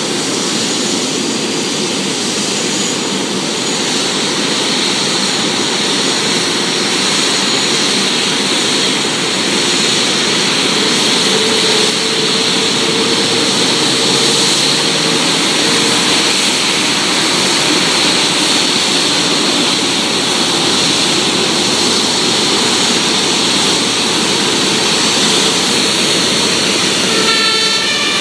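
Airbus A380's four Rolls-Royce Trent 900 turbofans at low taxi thrust: a steady jet rush with a high whine, growing slightly louder about a third of the way in as the aircraft comes closer.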